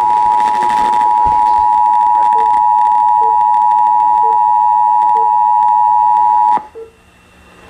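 NOAA Weather Radio warning alarm tone: a single loud, steady high-pitched tone that cuts off about six and a half seconds in. It signals that a warning message is about to be broadcast.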